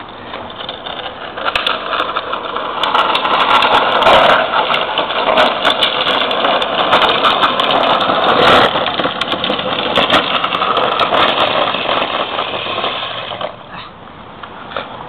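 Hard plastic wheels of a Green Machine ride-on trike rolling fast down asphalt: a loud grinding rumble with scattered clicks that builds over the first few seconds and drops off sharply about a second and a half before the end as the ride stops.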